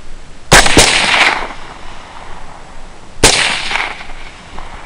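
Rifle shots: a quick pair of sharp cracks a quarter second apart about half a second in, then a single shot about three seconds in, each trailing off in echo.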